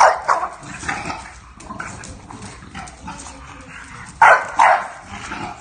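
English bulldogs barking at each other while they tussle: a sharp bark at the start, quieter calls and scuffling, then two sharp barks in quick succession about four seconds in.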